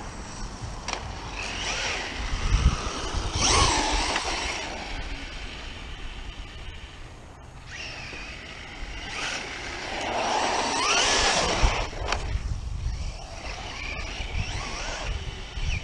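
Rustler 4X4 RC truck driving on asphalt, heard up close from on board: the electric motor and gears whine, rising in pitch twice as it speeds up, over tyre and wind rumble.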